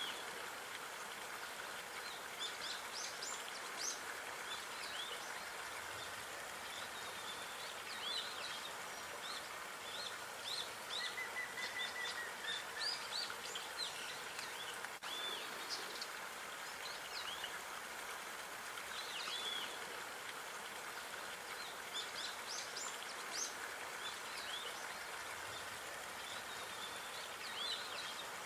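Small songbirds chirping and twittering on and off over a steady background hiss of outdoor ambience, with a short trill near the middle.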